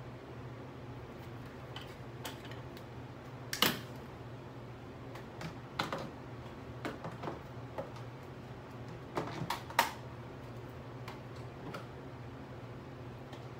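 Scattered light clicks and taps, loudest twice, about three and a half seconds in and near ten seconds in, over a steady low hum; the vacuum is not running.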